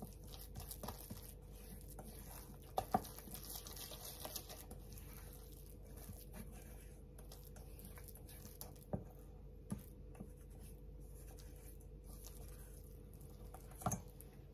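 Silicone spatula stirring and mashing a soft tofu mixture in a stainless steel bowl: faint wet squishing and scraping, with a few sharp taps of the spatula against the bowl.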